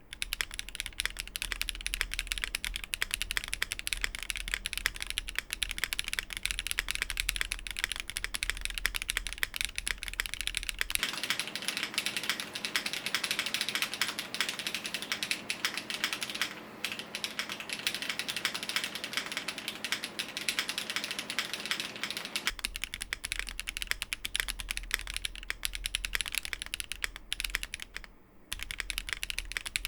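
Continuous fast typing on a Functional.co Burly 65 custom mechanical keyboard with HMX Chu switches, an FR-4 plate and GMK doubleshot ABS keycaps. Dense keystroke clacks run on with one short pause near the end.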